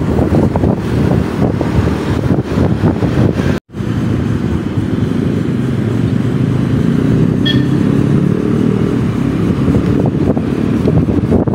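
Motorcycle engine running under way, with wind rushing over the microphone. The sound drops out completely for a moment about three and a half seconds in.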